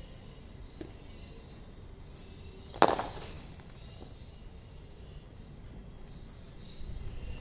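A cricket bat striking a leather cricket ball: one sharp crack about three seconds in, ringing briefly after.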